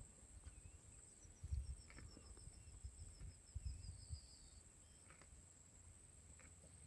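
Faint grassland ambience: a steady high-pitched insect hum, with a bird's quick falling trill of about a dozen short notes from about a second in to past the middle, and a few soft low thumps.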